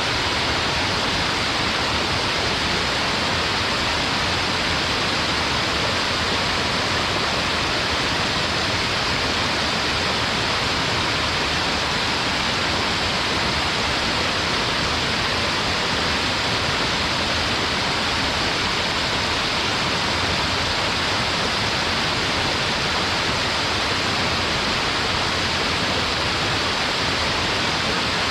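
Small mountain waterfall pouring steadily onto rock: an even, unbroken rush of falling water, strongest in the upper-middle range.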